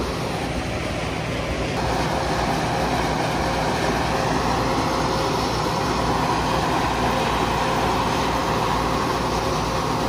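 John Deere four-wheel-drive tractor engine running and driving a grain loader auger, a steady machinery drone with fixed tones. The noise steps up and grows fuller about two seconds in, then holds steady.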